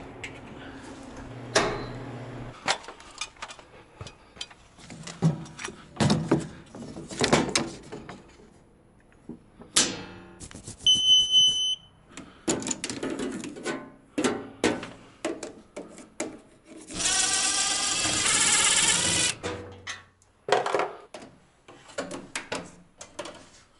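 Knocks and clicks of handling at a breaker panel. About eleven seconds in, a non-contact voltage tester gives a single high electronic beep lasting about a second. Later, a harsh noise lasts about two and a half seconds.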